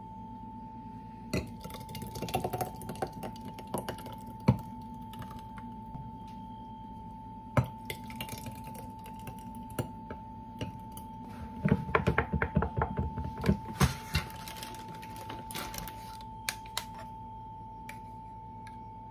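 Thick blended juice poured from a plastic blender jug into two glass goblets: scattered knocks and clinks of the jug and glassware, then a dense run of glugs and splatters for about two seconds near the middle, over a steady faint tone.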